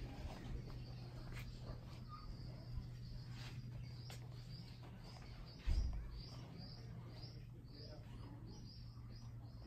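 Small birds chirping in a quick series of short, high calls, about two or three a second, starting about four seconds in, over a steady low hum. A single dull thump, the loudest sound, comes a little past halfway.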